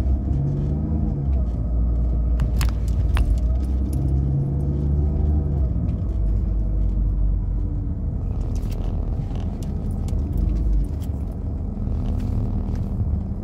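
Car engine and road rumble heard inside the cabin at low speed, the engine note rising and falling. Light jingling rattles come through about two and a half to three seconds in and again around eight to nine seconds in.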